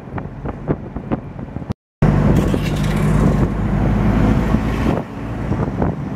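Riding in the open back of a red Chiang Mai songthaew shared taxi: wind buffets the microphone in quick gusts, then after a brief cut the truck's engine and road noise run steadily and loudly.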